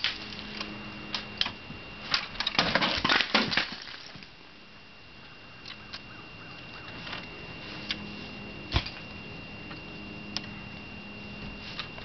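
Sharp knocks and clattering of icicles being broken and chunks of ice falling. A dense burst of clatter comes about two to four seconds in, then single knocks every second or two.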